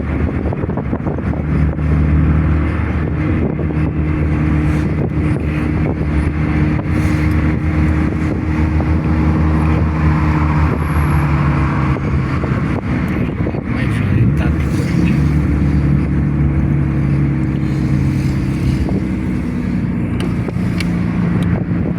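Sports car engine running steadily at highway speed, heard from inside the cabin over tyre and road noise. The engine note dips and rises again about two-thirds of the way through.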